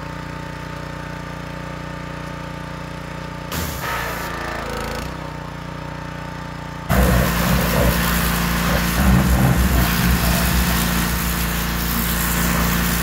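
Petrol pressure washer's engine running steadily under load. About seven seconds in the sound turns much louder, with the hiss of the high-pressure water jet spraying a tractor tyre close by.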